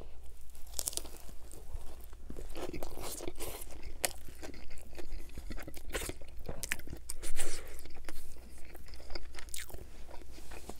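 Close-miked biting and chewing of a Subway Italian BMT sub with ripple potato chips in it, giving irregular crisp crunches throughout, one louder crunch about seven seconds in.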